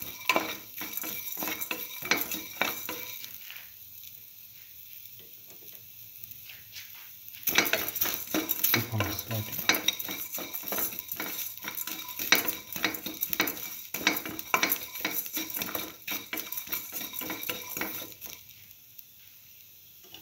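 A utensil stirring and scraping shallots, garlic and ginger as they fry in oil with mustard seeds in a metal pan, over a faint sizzle. The stirring pauses for a few seconds about four seconds in and stops again near the end, leaving only the sizzle.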